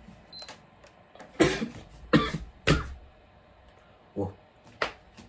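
A young man coughing: three loud coughs about two-thirds of a second apart, then two fainter ones.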